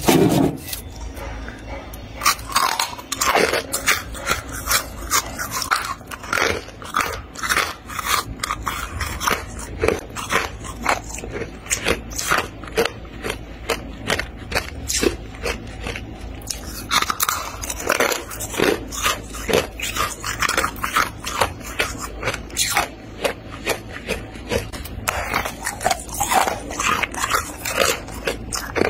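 Hard freezer frost crunching and crackling in repeated bursts of sharp, crisp cracks.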